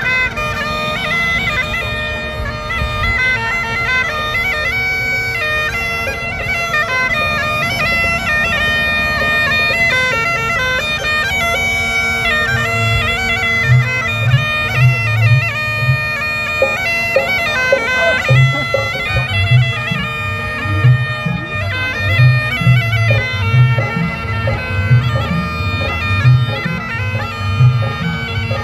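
Masakbeen, the Uttarakhand bagpipe, played: a steady drone under a shifting chanter melody. About halfway through, low thumps come in with a beat.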